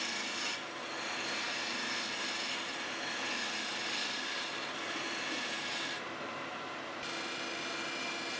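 A gouge cutting a spinning segmented wooden vase on a wood lathe: a steady hissing scrape as shavings are peeled off the wood.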